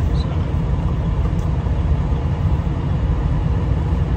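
A steady low rumble throughout, with a faint small click near the start.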